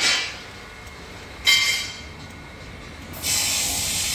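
Bursts of loud hissing: a short one at the start and a longer, steady one from about three seconds in, lasting about a second and a half, with a sharp metallic clink about a second and a half in.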